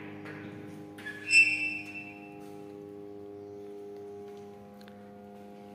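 The latch of a sheet-steel switchgear panel door clicks about a second in, followed by a short, high metallic ring as the door is unlatched. A steady electrical hum with several fixed pitches carries on underneath.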